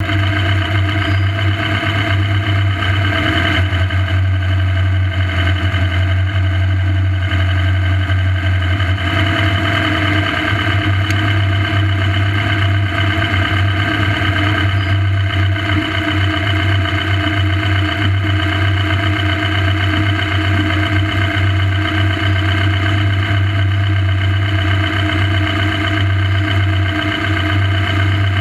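A competition rock-crawling buggy's engine idling steadily, a constant low hum with no revving.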